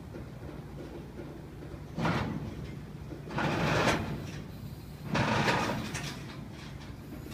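Freight cars of a slow-moving intermodal train rolling over the track at a grade crossing: a low steady rumble with a scraping noise that swells and fades three times, about every one and a half seconds.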